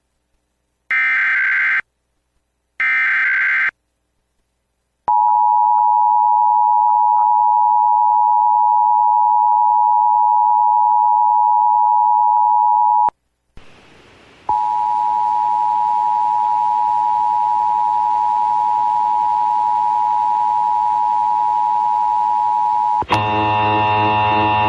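Emergency Alert System broadcast signals: three short warbling data bursts of the SAME header about a second apart, then after a pause the two-tone EAS attention signal held steady for about eight seconds. After a brief break a second steady alert tone runs over hiss, and near the end a harsh buzzing tone begins.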